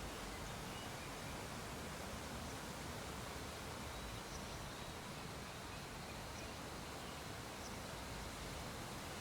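Steady faint hiss of background noise, with a few faint, short high chirps or ticks scattered through it.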